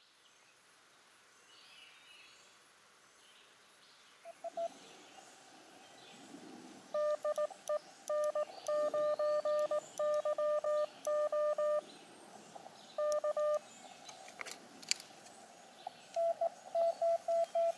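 Morse code (CW) from an Elecraft KX2 HF transceiver: one steady beep keyed on and off in short and long elements, in runs separated by pauses. Faint birdsong underneath.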